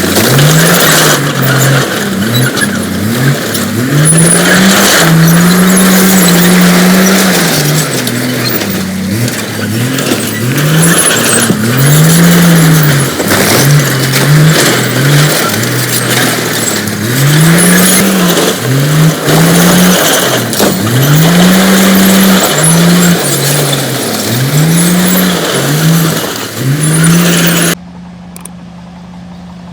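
Heavy diesel engine of a bulldozer running loud, its pitch rising and falling again and again as it revs up and down under changing load. Near the end the sound drops suddenly to a quieter, steady low hum.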